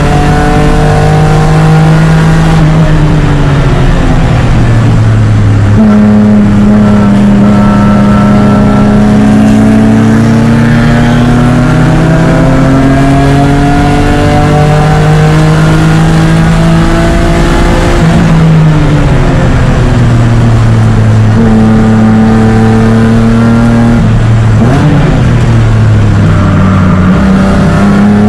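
BMW E36 race car's engine at high revs, heard from inside the cockpit, climbing in pitch through each gear and dropping back sharply at the shifts, about six times over the stretch, with a longer fall and climb under braking and acceleration around the middle.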